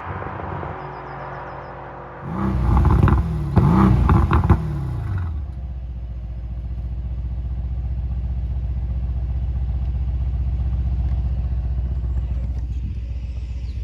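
Mercedes-AMG GLC 63 S's 4.0-litre twin-turbo V8 exhaust, revved hard in a few quick blips with crackles and pops, then settling into a deep, steady idle.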